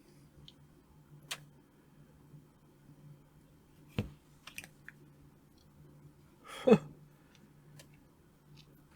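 A few light, sharp clicks and taps spaced over several seconds, over a faint steady hum. About two-thirds of the way in comes one short vocal sound falling in pitch, like a murmured 'ooh'.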